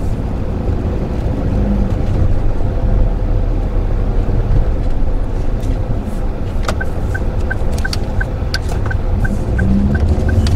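Cabin noise inside a 2013 Daihatsu Move Custom RS, a steady low rumble from its 660 cc turbo three-cylinder and the road. About seven seconds in, a quick, even ticking starts, about three ticks a second.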